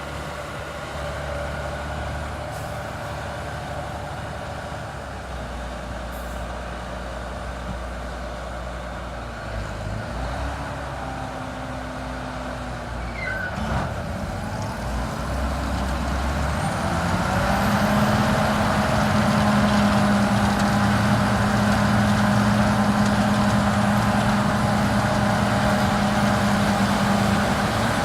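Claas Lexion 740 combine harvester running while harvesting wheat: a steady engine and machinery drone that grows louder and takes on a strong steady hum about two-thirds of the way through.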